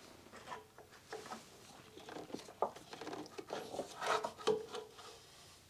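Faint rubbing and light knocks of a Toyota Camry engine torque rod, a rubber-bushed link, being worked by hand out of its metal mounting bracket. There are a few sharper clicks about two and a half seconds in and again around four seconds.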